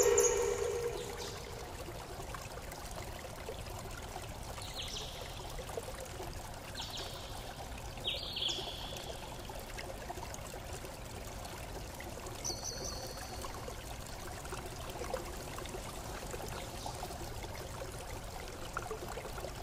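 Steady rush of running or lapping water, with a few short, high, falling chirps now and then. A loud pitched tone starts sharply at the very beginning and fades within about a second.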